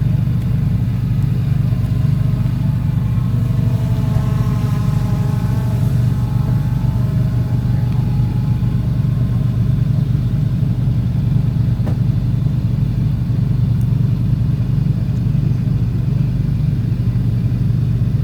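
Off-road rock-crawling vehicle's engine running at low revs, a steady low rumble. A fainter higher engine tone rises and falls for a few seconds near the middle.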